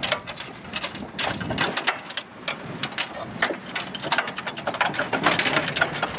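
Steel bolts, washers and hand tools clinking and tapping irregularly against steel plates as a cross-shaped base is bolted to a float plate, with a quick run of clinks about five seconds in.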